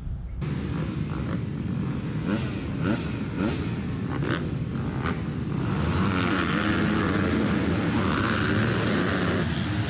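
Many motocross bikes' engines running together at the starting gate, their revs rising and falling, then held high together from about six seconds in.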